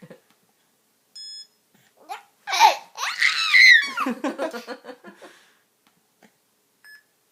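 A short electronic beep, then a baby laughing hard, a long belly laugh breaking into a quick run of short chuckles. Another brief beep comes near the end.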